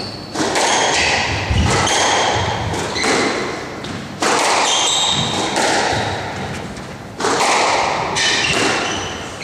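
Squash rally: the ball struck hard by rackets and slapping off the walls several times, each shot ringing on in the hall, with short high squeaks of court shoes on the wooden floor.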